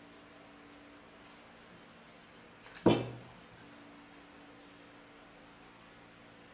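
A single sharp knock of wood on the workbench, about three seconds in, that rings briefly, over a faint steady hum.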